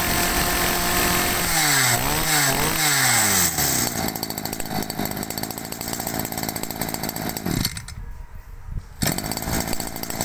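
Small two-stroke Robin brush cutter engine (about 20 cc) running fast, then revved up and down several times about two to three seconds in before settling to a lower, rougher run. Its sound briefly drops away about eight seconds in, then resumes.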